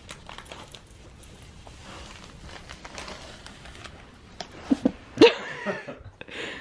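Golden retriever puppy working at a small red wrapped present: faint rustling and scuffling, then about five seconds in a short burst of loud pitched sounds that bend in pitch.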